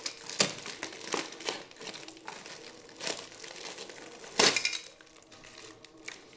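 Plastic-wrapped paper parcel packaging crinkling and rustling as it is unwrapped by hand, in irregular crackles, with a louder crackle about four and a half seconds in.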